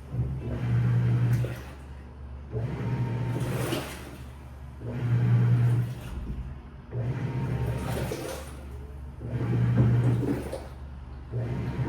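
Washing machine in its wash cycle: the drum turns in repeated surges, each with a low motor hum and a swishing wash, about every two seconds, with short quiet gaps between.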